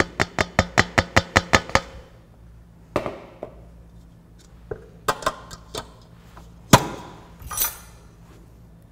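A blue mixing bowl knocked about nine times, quickly and evenly, against the rim of a stainless-steel stand-mixer bowl to tap the flour mixture out. Then scattered clatter of the steel bowl being handled, and one loud knock near seven seconds, followed by a short rustle.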